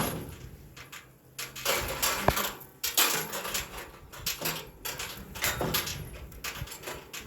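Irregular scraping and knocking handling sounds, with louder knocks about two and three seconds in.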